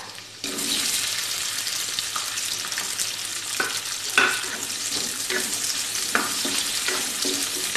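Chopped onions hit hot oil in a kadai and start sizzling loudly about half a second in; the sizzle runs on steadily while a spatula stirs them, scraping against the pan a few times.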